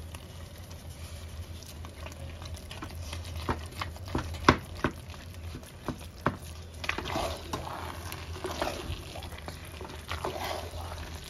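A spoon stirring and turning thick carrot halwa (gajar ka halwa) in a metal pot: wet squelching and scraping, with sharp knocks of the spoon against the pot, the loudest about four and a half seconds in. A steady low hum runs underneath.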